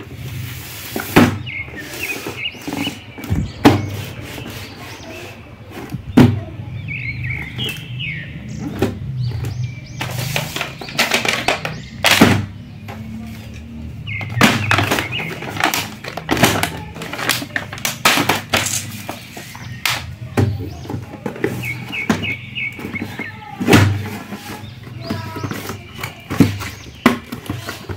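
Cardboard toy boxes and plastic blister packs being handled and set down: irregular thunks and knocks with some rustling of packaging, over music.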